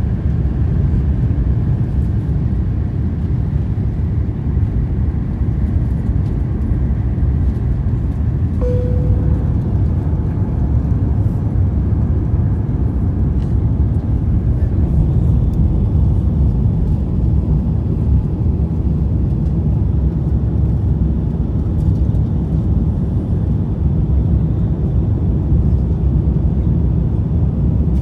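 Steady cabin rumble of an Airbus A350-1000's Rolls-Royce Trent XWB engines at takeoff power, with airflow noise, heard from inside the passenger cabin as the jet leaves the runway and climbs. One brief tone sounds about a third of the way in.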